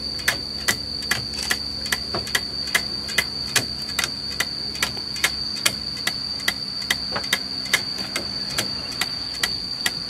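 Cotton-fluffing bow string being plucked over and over, a sharp snap about two and a half times a second, beating loose ginned cotton inside a woven bamboo basket. A steady high-pitched whine runs underneath.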